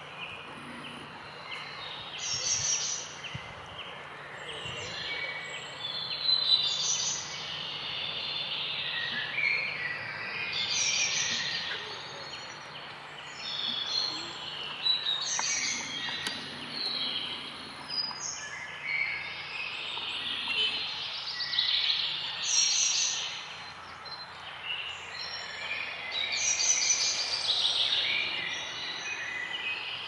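Small songbirds singing, a run of short high twittering phrases coming every second or two, over a faint steady outdoor background.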